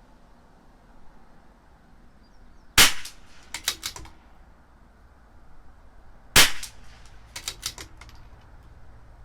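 Two .22 LR rimfire shots from a CZ 457 bolt-action rifle, about three and a half seconds apart, each followed by a few quick clicks of the bolt being worked to chamber the next round.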